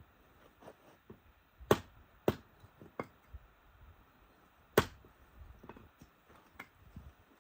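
Firewood being broken up: three loud, sharp wooden cracks, two about half a second apart roughly two seconds in and a third near five seconds, with fainter knocks between.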